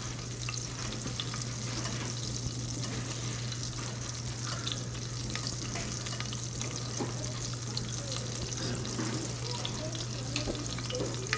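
Steady stovetop sizzle with light scattered crackles as an egg poaches, over a steady low hum.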